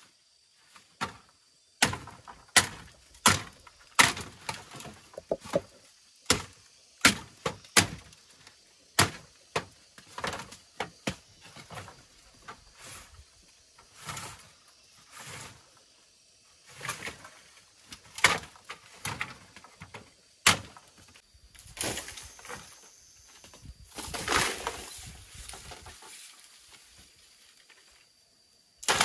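A run of sharp, irregular knocks, mostly one to two a second, like blows on wood, with a longer noisy stretch near the end.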